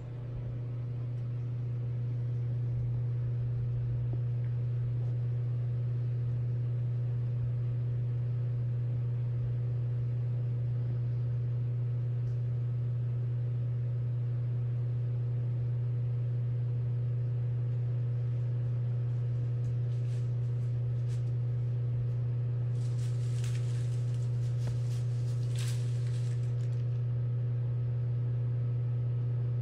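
A steady low machine hum, like a motor or compressor running, holding level without change; a brief hissing rustle comes in about three-quarters of the way through.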